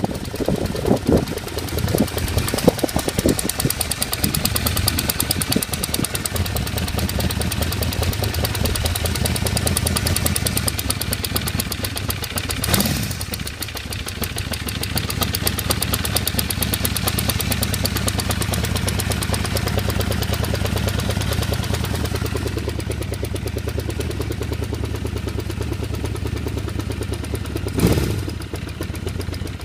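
1978 Honda CB550K's air-cooled inline-four engine idling with a fast, even ticking; the owner can't tell what the tick is or where it comes from, whether the valve train or the exhaust. The engine note swells briefly twice, midway and near the end.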